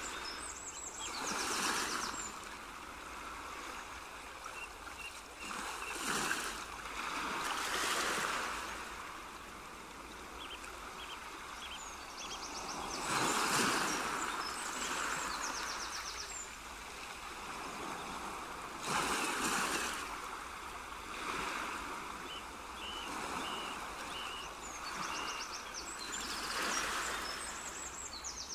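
Water ambience: a rushing wash of water that swells and fades every few seconds, with small birds chirping and trilling over it.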